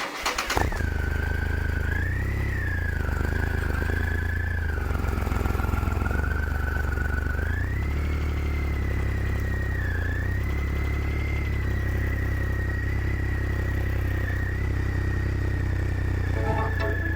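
Motorcycle engine running steadily while riding at a constant pace, with a thin high whine that drifts slightly up and down in pitch.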